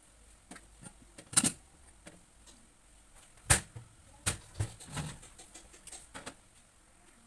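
Kitchen handling noises: a handful of sharp knocks and clatters as a plastic tub and a large round lid are put down and moved about on a steel stovetop. The two loudest knocks come about a second and a half and three and a half seconds in.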